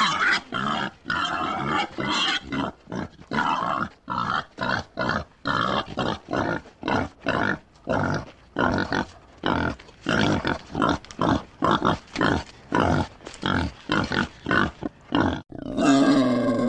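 Wild boar grunting in a long, rapid series of short harsh grunts, about two a second. The series breaks off near the end.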